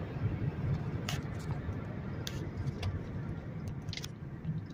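Steady low road and engine noise inside a moving car, with several sharp ticks at irregular moments.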